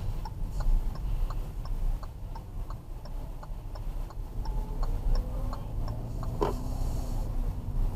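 Car turn-signal indicator ticking steadily, about three ticks a second, inside the cabin over the low hum of the engine and road. A faint rising tone comes in around the middle, and there is a single knock about six and a half seconds in.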